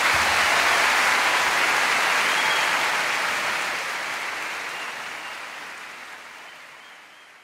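Audience applauding, a dense even clatter of many hands that fades away gradually over several seconds.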